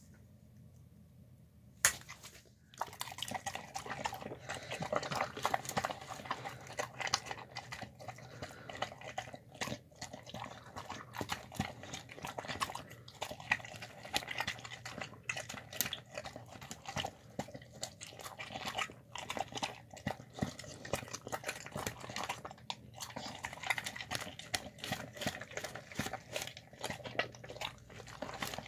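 Dog eating soft, wet food from a plastic tub: fast, continuous wet smacking, slurping and chewing. A single sharp knock comes about two seconds in, before the eating starts.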